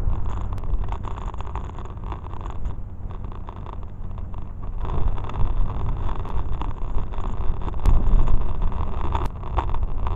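Wind buffeting the microphone, with a steady low rumble and scattered rattles and clicks as the camera moves about.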